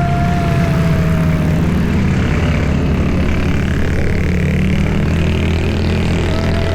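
Suzuki Jimny engine running steadily on the move, a loud low hum, with a thin whine over it that fades out about a second and a half in and returns near the end.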